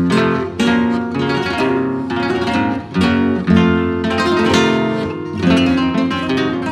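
Background acoustic guitar music with repeated strummed chords, in a flamenco style.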